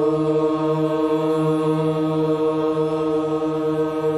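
Voices chanting a mantra, one long syllable held on a single steady pitch.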